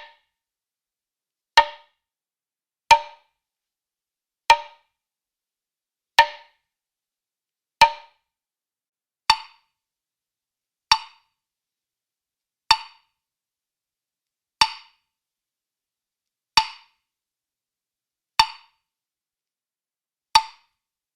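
Woodblock struck with single sharp hits about every one and a half to two seconds, thirteen in all. Each hit has a short hollow ring that dies away quickly, with silence between hits.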